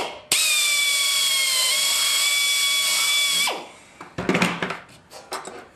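Electric drill with a number 30 bit drilling a hole through the aluminium spar and rib attach angle: a steady whine for about three seconds, dipping slightly in pitch partway through as the bit cuts, then winding down. A few clicks and rattles of handling follow.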